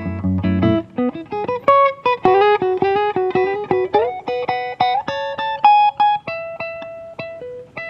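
Acoustic guitar played as improvised music: a run of quick plucked notes, with deep low notes in the first second and a note sliding up about four seconds in.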